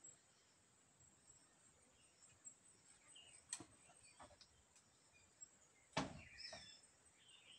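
Near silence: faint outdoor background with a steady high insect drone and a few small bird chirps, broken by two sharp clicks, about three and a half and six seconds in, the second the louder.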